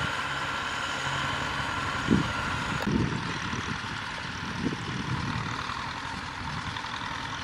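Farm tractor's diesel engine running steadily under load as it pushes soil with a blade, with a few low thumps.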